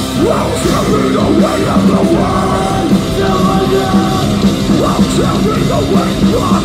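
Metalcore band playing live: distorted electric guitars, bass and drums, with screamed vocals, recorded on a phone microphone in the crowd.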